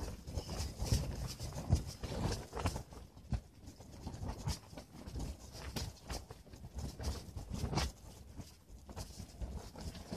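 Strong wind buffeting the fabric walls of a pop-up ice-fishing shelter: irregular flapping and snapping knocks over a low wind rumble.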